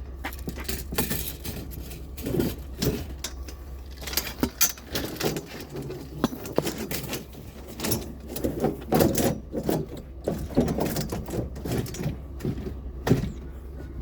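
Curbside scrap and junk being handled and moved, with irregular clanks, rattles and knocks, some sharp, over a steady low hum.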